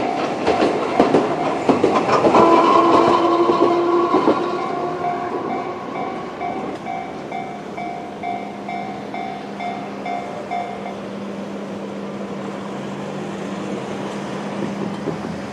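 Manyō Line De7070-type tram passing over a level crossing: wheels clacking over the rail joints with a short whine, loudest a few seconds in. Meanwhile the crossing's electronic warning bell, set to the JR standard tone, rings in a steady rhythm and stops about eleven seconds in as the crossing clears.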